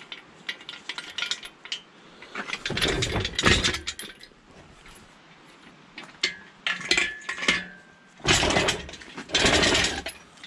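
Metal tools and hardware clinking and clattering as they are handled, with two louder, longer rattling clatters about three seconds in and again near the end.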